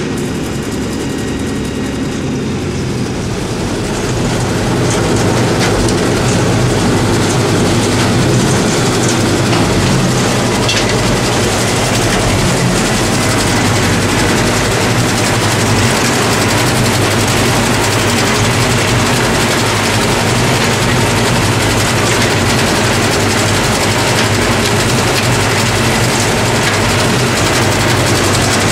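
Tractor and trailed Pöttinger Mex VI forage harvester running under load, picking up and chopping grass for silage. A loud, steady mechanical drone mixed with the rush of crop through the machine, which grows louder and harsher about four seconds in and then holds steady.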